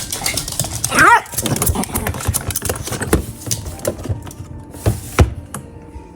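A chihuahua gives one high, arching yelp about a second in, among a run of clicks and knocks, with a sharp knock near the end.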